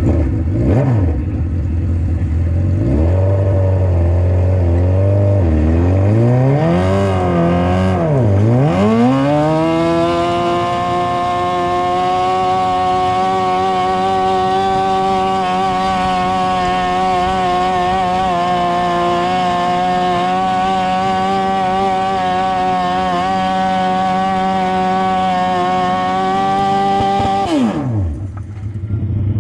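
Garden pulling tractor's engine pulling a weighted sled: it idles, revs up and down a few times, then climbs to full throttle and holds there steadily for about seventeen seconds, until the throttle is cut and the revs fall sharply near the end.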